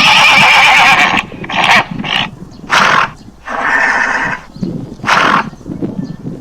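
Loud farm-animal calls: a long cry at the start, then a string of shorter cries with a second long one midway.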